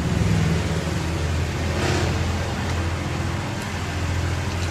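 A machine motor running with a steady low hum, with a brief hiss about two seconds in.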